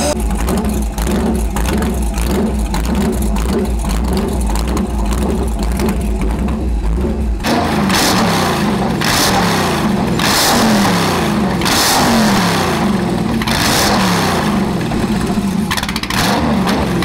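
Chevy LS1 V8 running loud and a little stumbly, not yet tuned, on its first run after ten years in storage. About halfway through, the sound changes to repeated revs, each falling back, roughly once a second.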